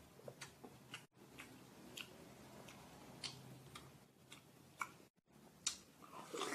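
Faint wet mouth clicks and smacks of a person chewing juicy watermelon, scattered a few tenths of a second apart, then a louder, juicier bite into a watermelon slice near the end. The sound cuts out briefly twice.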